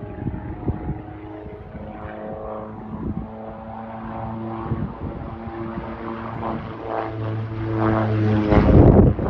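Aerobatic biplane's propeller engine droning overhead, a steady hum that grows louder over the last few seconds.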